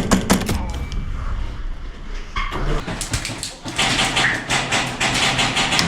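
Airsoft replica gunfire in close quarters: a quick string of sharp shots at the start, then more rapid shots clattering, densest in the second half.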